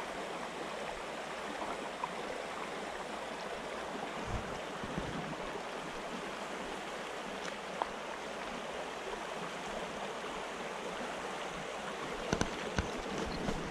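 Shallow mountain stream running over stones, a steady rush of water. A few low knocks come near the end.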